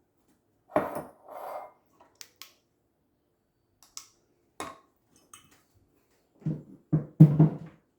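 Green depression-glass dishes clinking and knocking as they are handled and set down. There are scattered single clinks, then a cluster of heavier knocks near the end.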